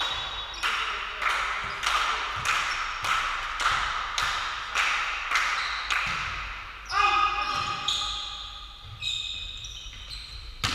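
Sharp smacks about twice a second, echoing in a sports hall, for the first six seconds or so, then voices calling out.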